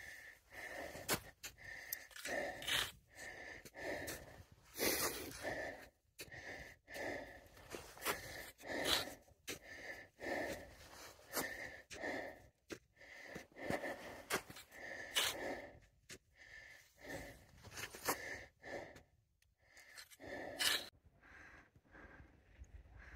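Hard, rhythmic breathing of a climber kicking steps up a steep snow slope, a breath about every second, the sound of heavy exertion.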